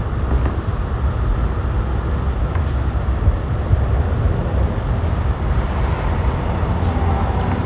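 Steady low background rumble, with a few faint high ticks near the end.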